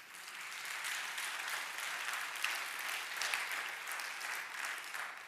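Audience applauding, building up over the first second, holding steady, then tapering off near the end.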